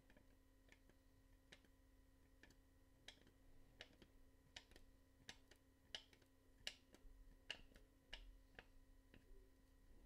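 Near silence: faint, sharp clicks at an uneven pace, roughly two a second, over a steady electrical hum.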